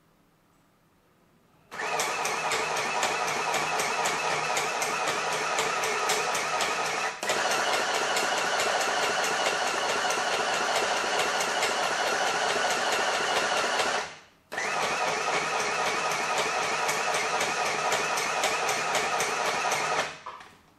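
UKICRA UFR-727 household sewing machine sewing at high speed: its motor running and needle stitching in a rapid, even rhythm. It starts about two seconds in, dips for a split second, stops briefly about two-thirds through, then runs again until shortly before the end.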